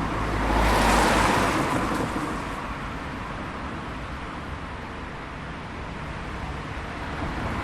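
Road traffic on a high-speed road: a vehicle passes close by, loudest about a second in and fading over the next two seconds, over a steady wash of traffic noise, with another vehicle approaching near the end.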